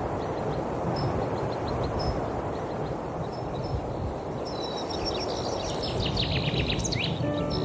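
Outdoor ambience: a steady rushing noise with birds calling, short high chirps about once a second, then a quick run of twittering song about halfway through. Music comes in near the end.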